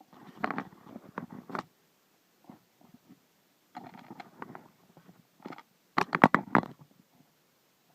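Hands handling an LCD monitor as its power is connected: scattered clicks, knocks and rustles, with a quick run of sharp clicks about six seconds in.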